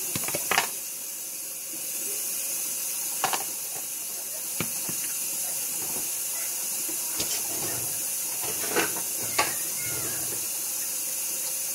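Cooking oil heating in a wok before frying: a steady hiss with a few sharp pops scattered through.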